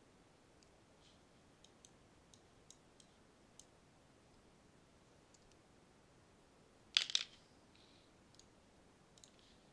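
Faint, scattered computer mouse clicks over a low hiss, with a louder quick clatter of clicks about seven seconds in.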